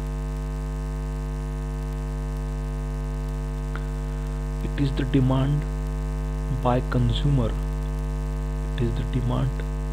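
Steady electrical mains hum with many evenly spaced overtones runs under the whole recording. A voice speaks in three short phrases through the second half.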